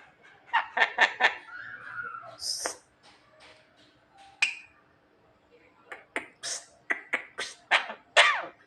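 Javan myna calling: a quick cluster of short harsh notes, a high whistle, then a fast string of sharp downward-sweeping calls near the end.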